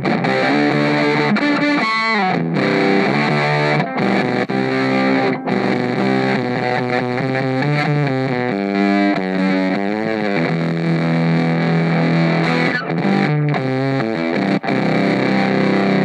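Electric guitar played through a Univox Unidrive overdrive pedal into an EF86/EL84 valve amp head and speaker cabinet, giving a distorted tone. The playing is continuous, with held notes and chords, bent and wavering notes around two seconds in and again near the middle, and a few brief breaks between phrases.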